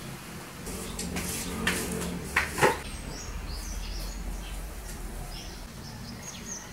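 A few scrapes and knocks from cleaning a tiled floor in the first three seconds, the loudest one near the middle. Then birds chirping in short calls.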